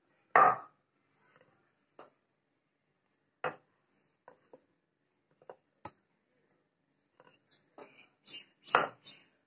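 Wooden rolling pin knocking against a rolling board while dough is rolled out and turned: scattered single knocks, the loudest about half a second in, then a quick cluster of knocks near the end.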